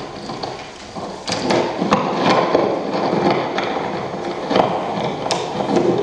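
Irregular sharp clicks and knocks, a few every second, over a crackling, rustling noise.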